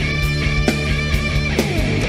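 Live hard rock band playing loud: distorted electric guitar over drums hitting about twice a second, with a high held note. Near the end a pitch slides downward.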